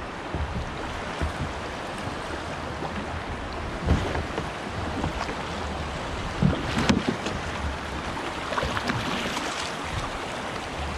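River water rushing and splashing around kayaks as one is held and pulled alongside another, with wind on the microphone. A few dull knocks stand out, one about four seconds in and a couple near seven seconds.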